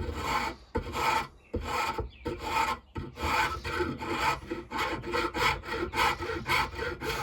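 Half-round file rasping back and forth on a cherry-wood knife handle, smoothing the wood down. The strokes are slow at first and quicken to about three a second about halfway through.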